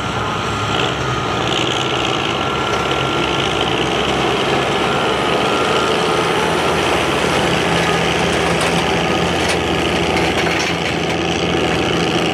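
Antique Oliver tractor engine running steadily as the tractor creeps forward on the pulling track.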